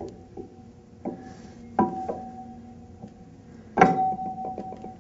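Hydraulic directional valve being worked down onto its metal manifold over the locating dowels: several metal-on-metal knocks, each leaving a brief ringing tone, the loudest near the end.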